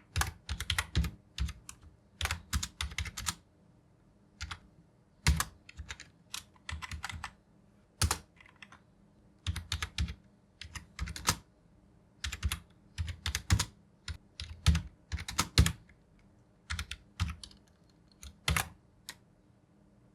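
Typing on a Rapoo NK2600 wired membrane keyboard: rapid runs of soft key clicks in bursts of a second or so, with short pauses between them.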